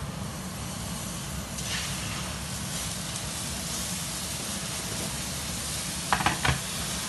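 Steady sizzling hiss of tenderstem broccoli pan-frying in a frying pan on a gas hob. A brief voice cuts in about six seconds in.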